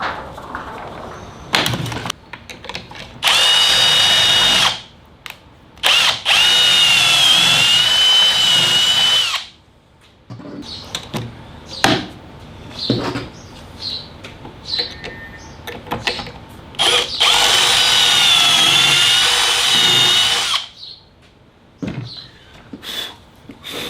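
A power drill spinning a stepped pocket-hole bit into timber through a Kreg 720 Pro jig, in three runs of a few seconds each. The whine wavers as the bit bites. Short clicks and knocks of handling come between the runs.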